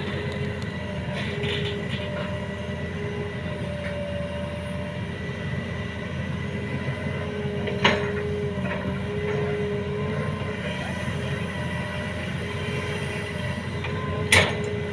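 Excavator's diesel engine running steadily under load, with a tone that cuts in and out. Two sharp metallic clanks come through, one about halfway through and one near the end.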